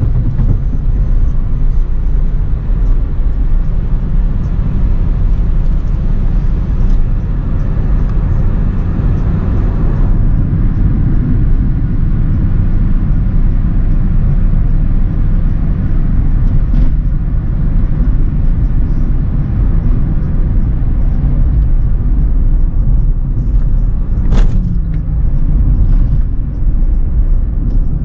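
Steady low road and engine rumble of an Acura RSX driving, heard from inside the car, with a single sharp click about 24 seconds in.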